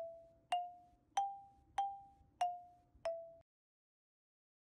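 A short tune of bell-like struck notes, six in a row about two-thirds of a second apart, rising a little in pitch and falling back, each ringing briefly before the next. It cuts off abruptly about three and a half seconds in.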